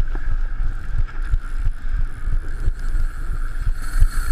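Wind buffeting an action camera's microphone on a boat in rough seas, in gusty low rumbles, over a steady higher hiss of wind and water.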